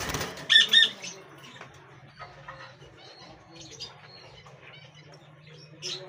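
Pet lovebirds in a wire cage: a brief flutter of wings, then two loud, shrill chirps about half a second later. Softer chirps follow here and there.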